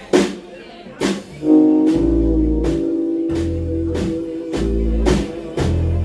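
A live band starting a song: two sharp hits of a slow count-in, then about one and a half seconds in electric guitar, bass and drums come in together and play on with a steady beat.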